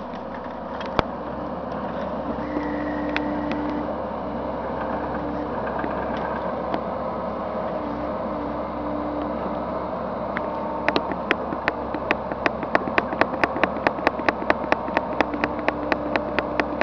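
Bobcat E55 mini excavator running, its engine and hydraulics working a tree shear, with a whine that comes and goes. From about eleven seconds in, a quick run of sharp clicks, about four or five a second, rides over the engine.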